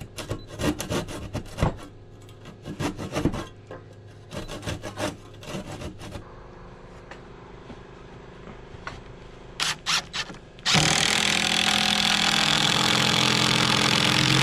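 Irwin handsaw cutting through a wooden board in quick strokes for the first few seconds, followed by a few knocks as the board is handled. About eleven seconds in, a cordless impact driver hammers a screw into the board for about five seconds, the loudest sound.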